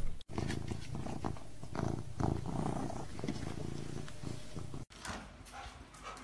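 Kitten purring: a low, even rumble that cuts off abruptly about five seconds in.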